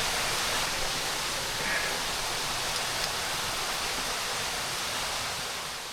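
Steady rushing of flowing water, an even, unbroken hiss that fades away near the end.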